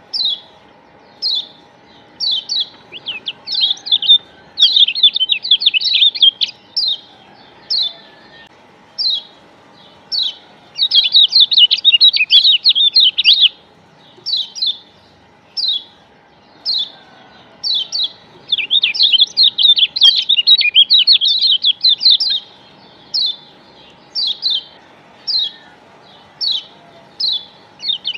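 Kecial kuning (Lombok yellow white-eye, a Zosterops) singing: high, short chirps about once a second that break three times into long runs of fast, dense chattering. A recording of this kind is played as a lure to set other kecial singing.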